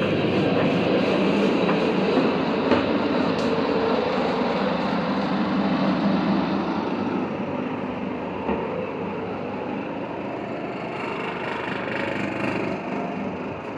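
Steady drone and rattle of a houseboat's engine while the boat is under way, heard from inside the cabin, with a few light knocks. The sound slowly fades over the second half.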